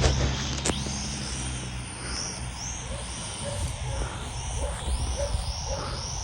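Wind rumbling on the microphone, with a small drone's propellers whining faintly in the distance, the whine rising and falling in pitch in quick repeated swells. A sharp click comes just under a second in.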